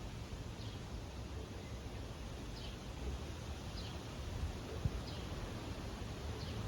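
A bird repeating a short, falling high call about once a second over a steady low rumble, with one sharp click about five seconds in.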